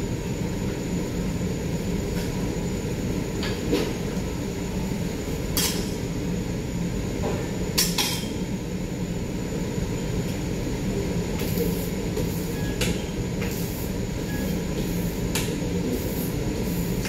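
Metal spatulas clinking sharply against a teppanyaki griddle, a dozen or so scattered strikes with a quicker run near the end, over a steady low rumble.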